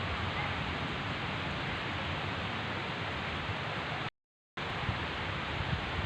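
Heavy rain falling: a steady, even hiss. The sound cuts out completely for about half a second about two thirds of the way through.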